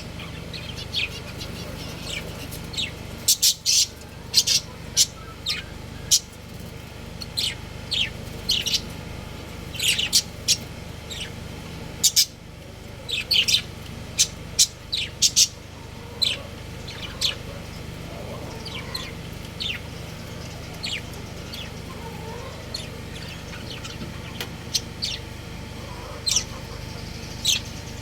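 Budgerigars chirping: many short, sharp chirps, thick and quick for the first half, then fewer and more spaced out after about sixteen seconds, over a steady low hum.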